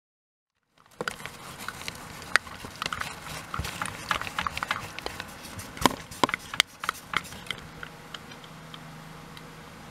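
Rapid irregular clicks, taps and knocks of things being handled, dense for several seconds and then thinning out, over a faint steady hum.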